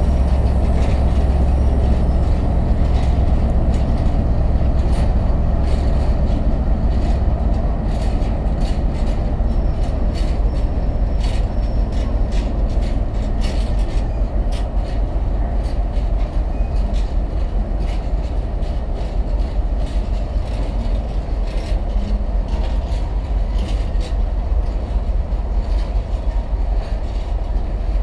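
A freight train of empty flat and box wagons rolling past close by: a steady low rumble of wheels on rail, with irregular clicks and clanks as the wheels cross rail joints.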